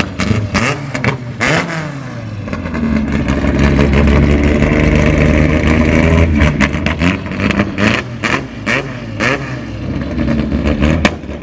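A car engine revving, its pitch climbing about two seconds in and holding strong for a few seconds before easing off, with rough crackling noise around it.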